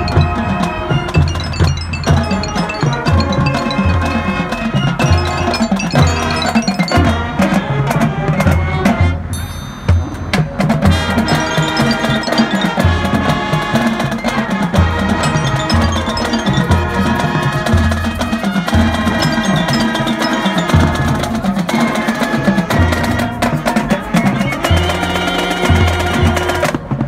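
Marching band music, with drums and mallet percussion such as glockenspiel and marimba, playing to a steady low beat. It breaks off briefly about ten seconds in and then resumes.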